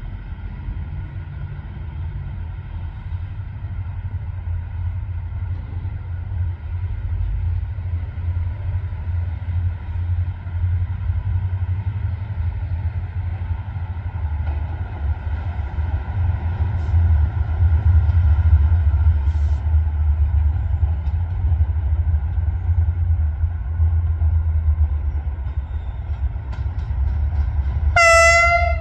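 Double-headed GM-class diesel locomotives approaching, a steady low engine rumble that grows louder. Near the end a loud locomotive horn blast starts suddenly.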